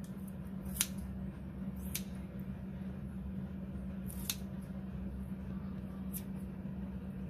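Kitchen scissors snipping through slices of boiled pork, four sharp snips a second or two apart, over a steady low hum.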